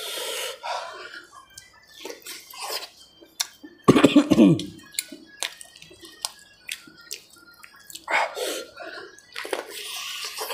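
Close-miked mukbang eating sounds: a man chewing and lip-smacking as he eats rice and chicken with his fingers, with many short wet clicks. A single loud throat sound falling in pitch comes about four seconds in.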